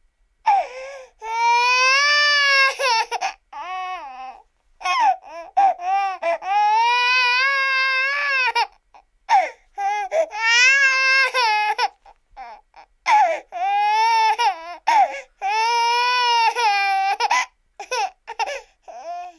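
A baby crying: a run of long wails, each one to three seconds, rising and falling in pitch and broken by short gasps and pauses for breath.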